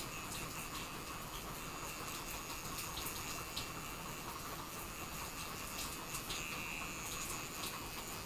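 Steady rain, with scattered light clicks over it.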